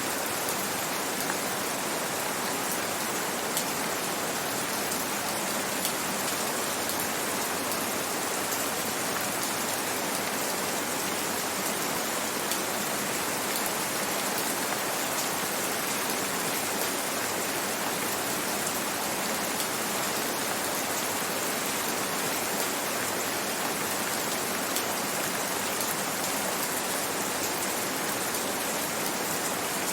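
Steady rain falling, a continuous even patter with scattered small drop ticks.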